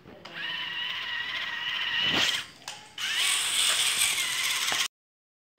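Small electric motor and gearbox of a homemade RC toy tractor running as it drives, a steady high whine with gear chatter. It dips briefly about two and a half seconds in, starts again, and cuts off suddenly near the end.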